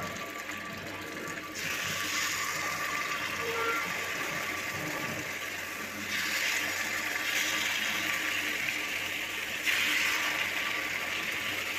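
Unniappam batter sizzling in hot oil in the cups of an appam pan; the hiss swells about a second and a half in, again around six seconds and again near ten seconds, as more batter is poured into fresh cups.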